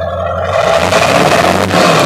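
2001 Duramax 6.6 L turbodiesel V8 running, heard close at the exhaust tip; the exhaust noise swells about half a second in and stays up. The engine runs smoother on a newly fitted fuel filter head assembly.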